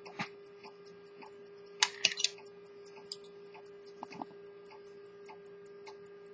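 Swiss lever-escapement pocket watch movement ticking quickly and evenly, about five ticks a second. A few louder clicks come about two seconds in and again just after four seconds.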